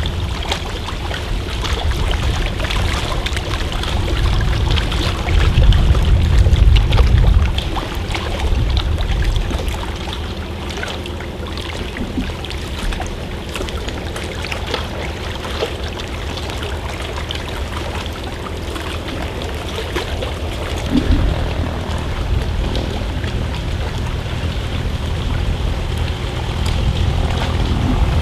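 Single-engine floatplane's piston engine and propeller running steadily at low power as it taxis on the water. Louder low rumbles come about five to seven seconds in and again about twenty-one seconds in.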